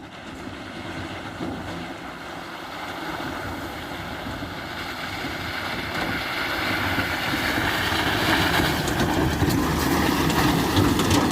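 A vehicle running with wind noise on the microphone, a steady rushing sound that grows louder throughout.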